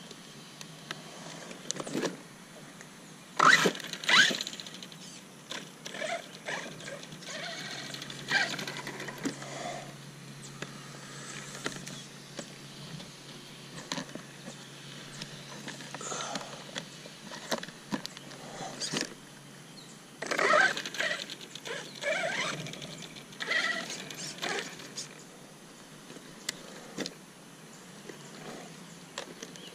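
Handling noises from a Redcat Landslide XTE RC monster truck being turned over and set back on its wheels by hand: scattered plastic clicks and knocks. Two loud knocks come about three and a half and four seconds in, and a cluster of knocks and rattles about twenty seconds in.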